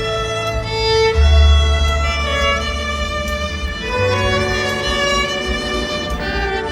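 Violin playing a melody of long bowed notes over a low accompaniment whose bass note changes every few seconds.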